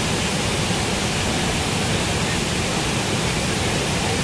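Athirappilly Falls in full monsoon flood: a huge volume of water pouring over the rock edge. It makes a steady, loud rushing noise that stays unchanged throughout.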